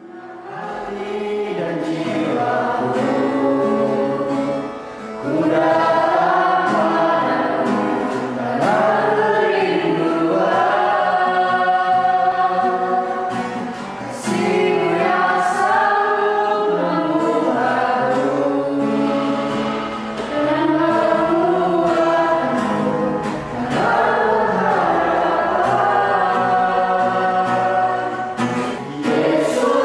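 A group of voices singing a Christian worship song together, starting from silence and swelling in over the first couple of seconds.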